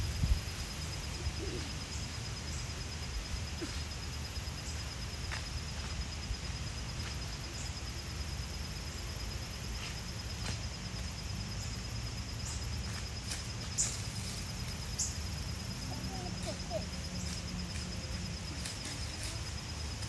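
Outdoor pond ambience: wind rumbling low on the microphone, with a steady high-pitched tone running throughout and a few faint scattered ticks.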